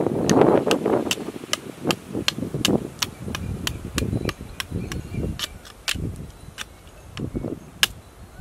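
A machete blade chopping and shaving along a thin wooden stick to trim it: a steady run of sharp wooden knocks, about three a second.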